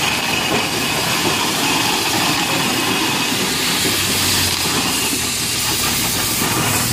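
Steam traction engines passing close by on the road, a steady hiss of steam over the mechanical clatter of the running engines.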